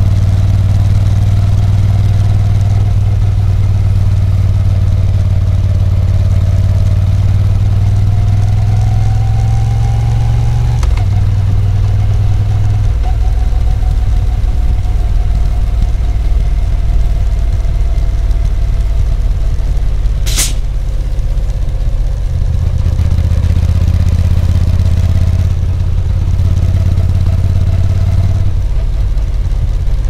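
Moto Guzzi V7 Special's 850cc air-cooled transverse V-twin engine running under way. A faint whine rises over a few seconds and the engine note drops about eleven seconds in, then changes again around thirteen and twenty-two seconds. A brief sharp high sound comes about twenty seconds in.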